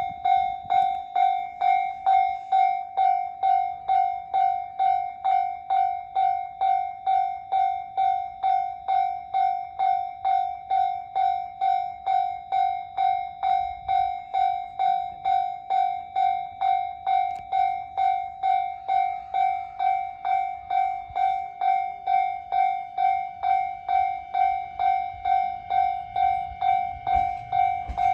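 Japanese railway level-crossing warning bell ringing steadily, about two electronic clangs a second, signalling an approaching train. Near the end a train's low rumble begins to rise beneath it.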